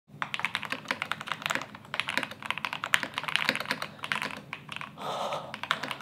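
Fast typing on a custom mechanical keyboard: a dense, rapid run of key clacks. A short breathy hiss comes near the end, with a few more keystrokes.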